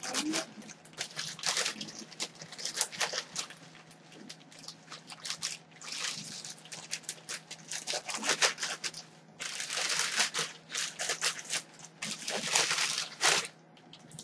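Packaging being handled and unwrapped, crinkling and rustling in irregular spells with short pauses between them.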